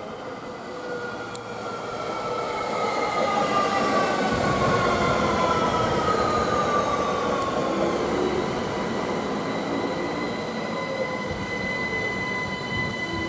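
A train passing, its sound building to a peak about four seconds in and then slowly easing, with a whine that falls in pitch and a steady high tone near the end.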